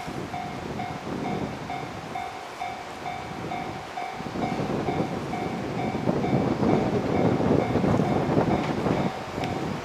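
JR 115 series electric train coming closer, its wheels rumbling and clattering on the rails, getting louder from about halfway through. A warning tone beeps steadily throughout, about two and a half times a second.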